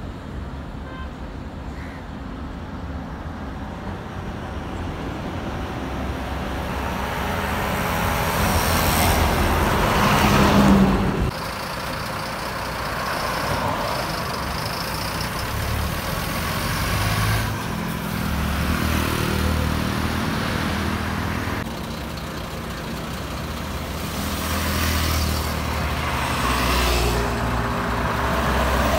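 Diesel lorries passing on a highway, their engines and tyres getting louder as each one approaches and goes by. The loudest is a truck passing close, about ten seconds in, and the sound drops suddenly just after it.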